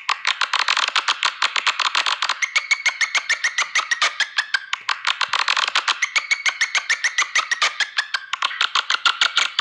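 Swiftlet call sound of the kind played to lure swiftlets to a nesting house: rapid chattering clicks, about eight to ten a second, with short twittering chirps over them.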